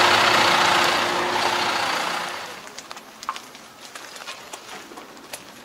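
An engine idling with a steady hum fades out over about two seconds. After it, light scattered clicks and taps are left.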